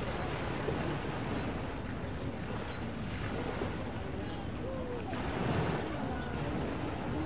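Outdoor town ambience: a steady wash of noise with faint voices murmuring in the distance and a few short, high chirps scattered through it.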